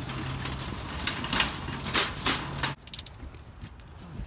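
Wire shopping cart rolling over parking-lot pavement, rattling with several sharp metal clanks, then stopping abruptly almost three seconds in.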